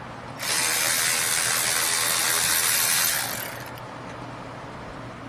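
A cordless electric wrench spins out the 14 mm top caliper bolt on a rear brake caliper. It starts about half a second in, runs steadily for about three seconds, then winds down.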